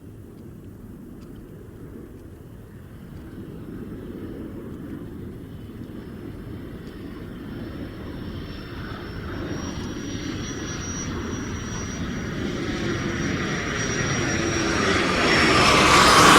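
Fighter jet approaching: its roar grows steadily louder, with a thin high whine that slides down in pitch near the end as the jet rushes past.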